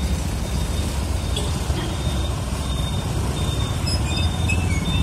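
Road traffic noise dominated by a bus engine running close by, a steady low rumble, with faint short high-pitched tones over it.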